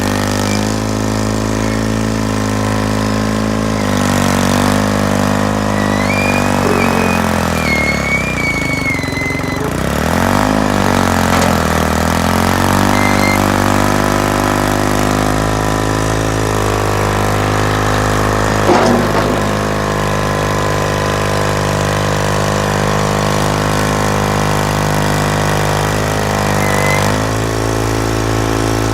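John Deere 440 industrial crawler's GM-built diesel engine running steadily. About a third of the way in its speed drops and climbs back up, with a high wavering squeal over it. There is a brief knock about two-thirds of the way in.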